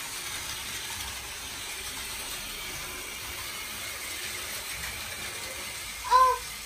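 Battery-powered toy Shinkansen trains running on plastic track: a steady whirring rattle of their small motors and gears. About six seconds in, a brief voice cuts in over it.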